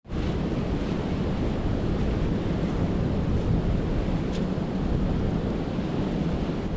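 Steady noise of wind buffeting the microphone, mixed with the wash of sea surf on a beach.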